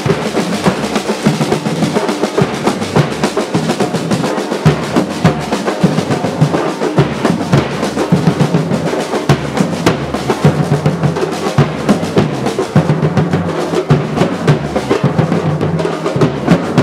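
Drums playing a fast, dense rhythm, without a break.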